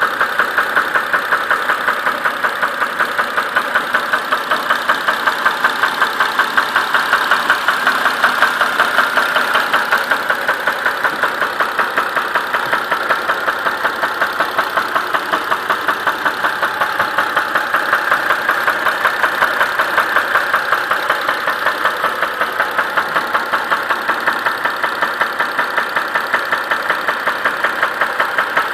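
Mitsubishi 6B31 3.0-litre V6 engine idling with a steady, regular knock repeating rapidly in time with the engine.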